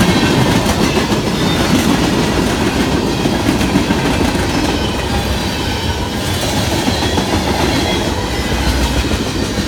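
Freight cars of a CSX manifest train rolling past at close range: a steady rumble of steel wheels on the rails, with a continuous clatter of wheels and couplers.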